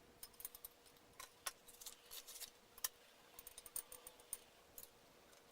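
Faint, scattered light clicks and ticks of small parts being handled, irregular, a dozen or more over a few seconds.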